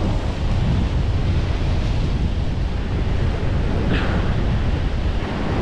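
Ocean surf breaking and washing over rocks, with wind buffeting the microphone as a steady low rumble.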